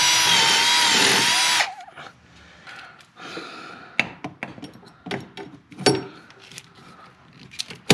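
Milwaukee cordless drill running at speed, drilling a rivet hole; it stops after about a second and a half. Then a hand rivet gun clicks as it is worked, with a sharp snap about six seconds in as the pop rivet sets.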